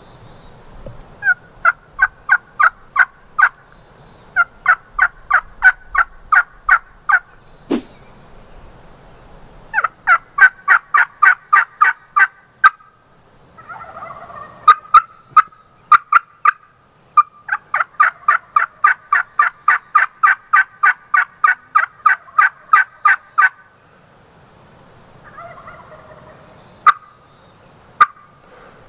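Turkey yelping in several runs of sharp, evenly spaced notes, about four or five a second, the longest run lasting some six seconds. A few single sharp clicks fall between the runs.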